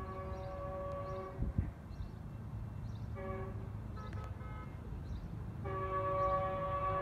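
Approaching Metrolink commuter train's horn sounding for the grade crossing: a long blast that stops about a second in, two short toots around three and four seconds in, then another long blast beginning near the end. A dull thump about a second and a half in.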